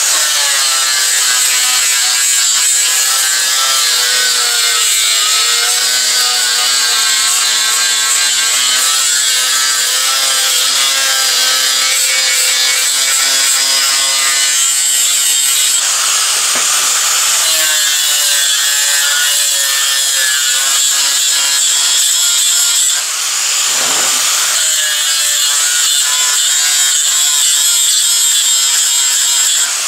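4-inch angle grinder with an abrasive disc on a backing pad grinding a flat steel bar, the motor whine over the hiss of the disc on metal. Twice, about halfway through and again a little later, the motor's pitch sags under load and then picks back up.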